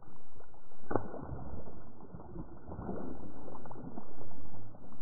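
Hooked bass splashing and thrashing at the water's surface beside the boat, with a sharp splash about a second in and more churning later. The sound is muffled.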